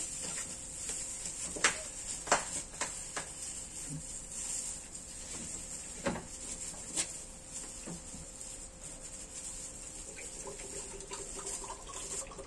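Scattered light knocks and clicks of frozen food packs and containers being pushed into a crammed freezer, several in the first few seconds and a couple more about six and seven seconds in.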